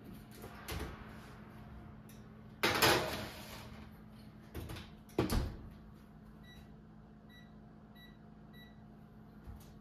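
Stainless-steel range oven door pulled open with a clatter, a baking sheet slid onto the rack, and the door shut with a thud about five seconds in. Then four short beeps come from the oven's control panel as its buttons are pressed.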